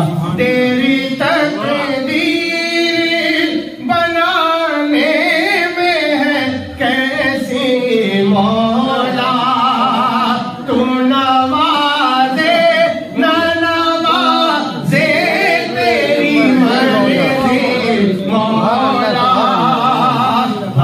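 A man singing an Urdu naat unaccompanied, in long drawn-out phrases that wind up and down in pitch, with short breaths between them.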